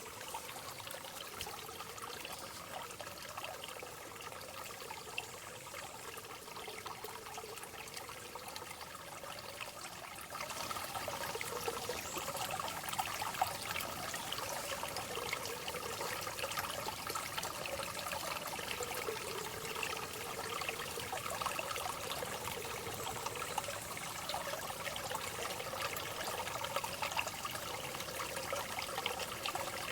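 Water trickling and running steadily in a rainforest ambience, growing a little louder about ten seconds in.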